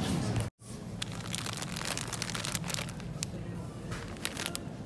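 Shop background with a trolley being pushed, which cuts off abruptly about half a second in. Then a run of short crinkles and clicks from a plastic bag of shredded mozzarella being picked up and handled.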